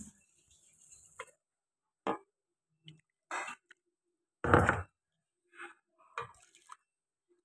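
A few scattered short knocks and clicks, with silence between them; the loudest is a heavier knock about four and a half seconds in.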